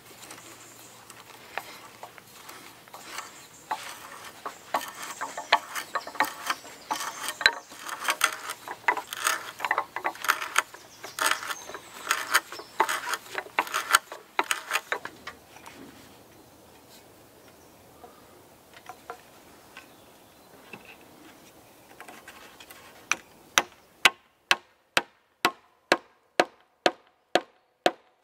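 A T-handle hand auger boring into a log, the wood giving a rapid, irregular run of cracks and creaks with each turn for about fifteen seconds. Near the end come about a dozen sharp knocks at a steady two a second: a wooden peg driven into a rafter joint with the back of an axe.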